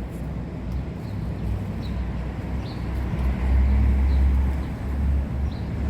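Low, steady rumble of a vehicle engine, growing louder about three and a half seconds in, then easing a little.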